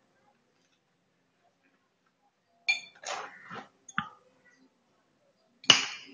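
Steel chisel struck against a flat stone grinding slab (shil), pecking small pits into its face to roughen it: sharp clinks in a few short clusters, starting almost three seconds in, with the loudest strike near the end.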